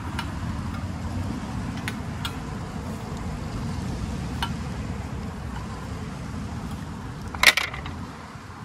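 A propane stove burner head being screwed onto a small green propane cylinder, its metal fitting clicking faintly now and then, with one sharper click about seven and a half seconds in. A steady low rumble runs underneath.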